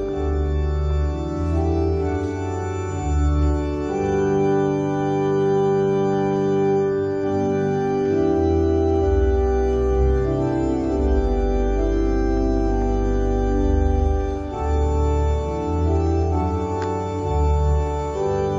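Organ music: slow, sustained chords over a moving bass line, the chords changing every second or two.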